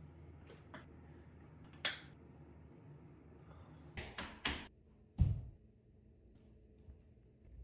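A sharp knock, then three quick knocks about two seconds later, followed by a low thump.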